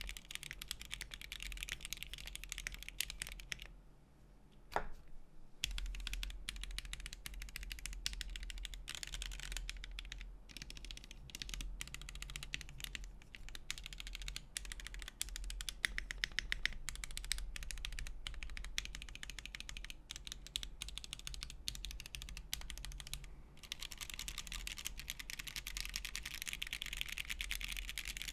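Continuous typing on a Monokei x TGR Tomo custom mechanical keyboard in top-mount configuration, with an aluminium plate, stock Gateron CJ linear switches and NicePBT Noel PBT keycaps: a dense run of key strokes. The typing pauses briefly about four seconds in, broken by a single key stroke, then resumes.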